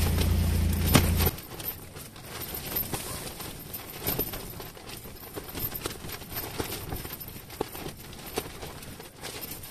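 A low steady rumble with a single knock, cut off abruptly just over a second in, then scattered light taps and clicks.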